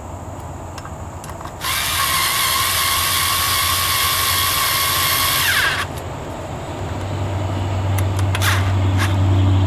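Cordless drill-driver running as screws are driven into the plastic housing of a septic air pump. A first run of about four seconds ends in a winding-down whine. A lower, steadier hum with a few clicks builds near the end.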